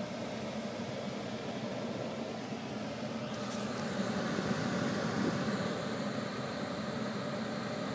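Old Carrier air handler's blower running steadily just after starting, a low hum under a rush of air, growing slightly louder about halfway through.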